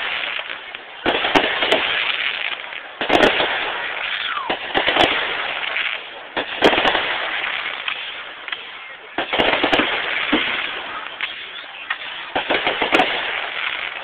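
Aerial fireworks shells bursting overhead: a series of sharp bangs, often two or three close together, every second or two, each followed by a long fizzing crackle as the stars burn out.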